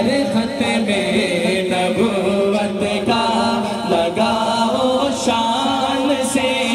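Naat, an Islamic devotional song, sung without instruments through a microphone and loudspeakers, with voices chanting in unison over a steady held note.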